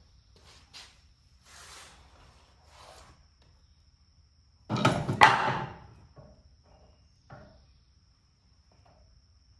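Hand tools and metal parts knocking and clattering while a tractor's steering arm is fitted with a castle nut. Scattered clicks and a couple of short scrapes lead up to a loud burst of several knocks about five seconds in.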